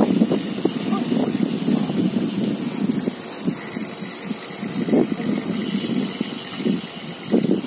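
Wind buffeting the microphone of a phone carried on a moving bicycle: an uneven rumble that surges and dips, with louder gusts about five seconds in and near the end.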